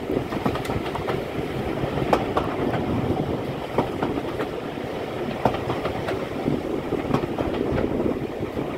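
Steam-hauled heritage passenger train running along the line: a steady rumble of carriage wheels on the track, with irregular clicks and knocks from the wheels and rail joints, heard from an open carriage window.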